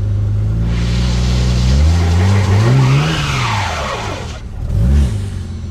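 A 1999 Holden VT Commodore's engine revved up from a steady run to a peak and back down while the wheels spin on loose ground with a loud hiss of tyre noise, then a second short blip of the throttle near the end.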